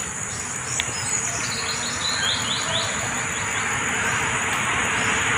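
Steady high-pitched insect drone, with a quick run of short falling chirps about two seconds in and a hiss that grows louder near the end.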